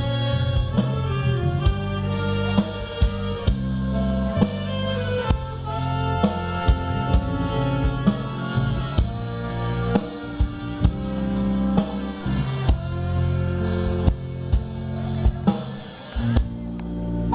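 An instrumental ensemble playing live music: sustained melody notes over a strong bass line, punctuated by drum hits. The music drops briefly near the end, then picks up again.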